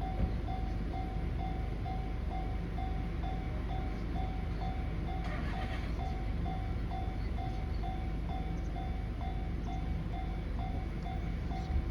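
Japanese level-crossing warning bell ringing in a steady, rapid, evenly repeating ding-ding-ding, over a low steady rumble.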